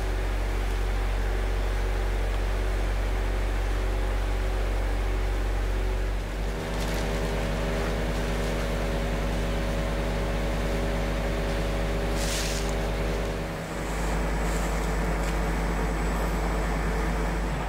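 Steady low drone of an idling engine, its tone shifting slightly twice, with a short hiss about twelve seconds in.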